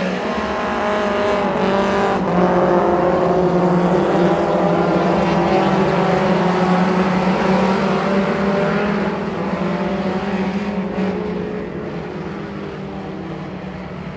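A pack of Mini Stock race cars running hard together, several engines overlapping at once. The sound is loudest as the field sweeps past and fades after about nine seconds as the cars pull away.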